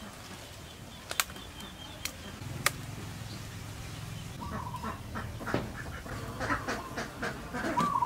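Three sharp snaps in the first three seconds as a knife cuts through papaya stalks, then poultry calling in short repeated notes through the second half, over a low steady hum.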